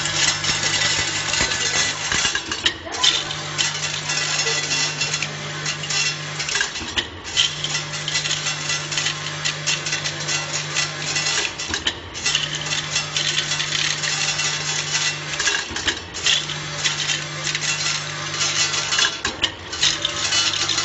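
Electronic counting and filling machine for chewing-gum pellets running: a dense, continuous clatter of pellets rattling through its vibrating feed channels, over a steady hum that stops briefly about every four seconds and starts again.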